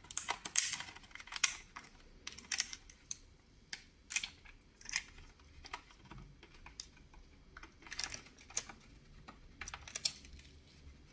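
Protective plastic film being peeled off a new router's casing: irregular crinkling crackles and clicks, thinning out near the end.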